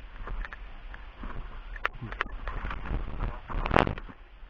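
A run of sharp clicks and knocks, with two crisp cracks about two seconds in and a louder, longer crack near the end.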